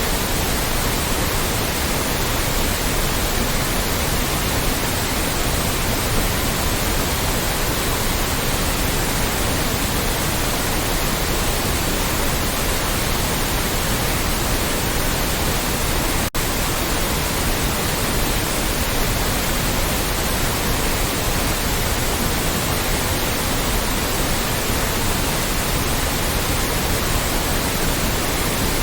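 Loud, steady white noise, an even hiss spread across all pitches, with one momentary dropout about sixteen seconds in.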